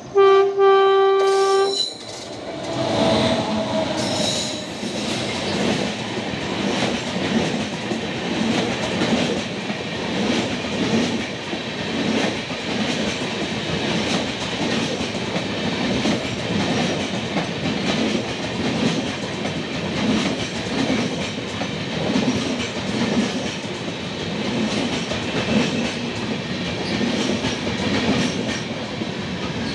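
Train horn sounds once, a loud steady chord for about a second and a half, as the Howrah Rajdhani Express approaches on the adjacent track. Then its coaches rush past close alongside, a continuous rumble with wheel clatter.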